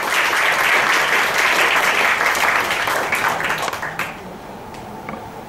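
Audience applauding, a dense patter of clapping that stops about four seconds in.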